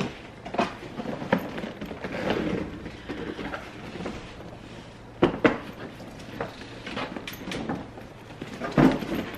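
Hard-shell carry-on suitcase being opened and handled: scattered knocks and clicks of the shell halves and hardware as the case is unzipped and swung open, with a stretch of rustling around two seconds in and the loudest knock near the end.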